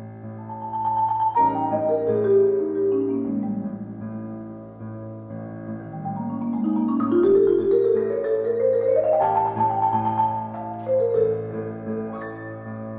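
Marimba played with mallets in fast note runs, sweeping down and then climbing back up, over sustained piano accompaniment.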